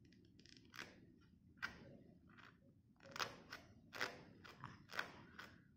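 Faint crinkling and ticking of a plastic sheet as a baby's fingers scratch and poke at it: a scattering of short crackles, more of them in the second half.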